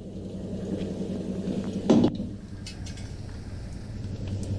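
Flat steel spatula clinking lightly against steel bowl and pan a few times as chopped green chillies are scooped up, over a steady low hum.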